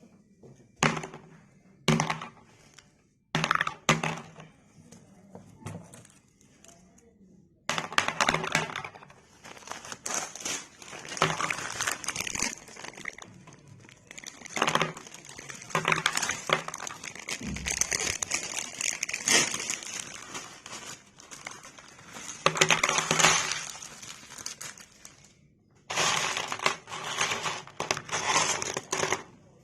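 Crunchy murukku being bitten and chewed close to the microphone: a few sharp snaps in the first seconds, then long stretches of loud crunching.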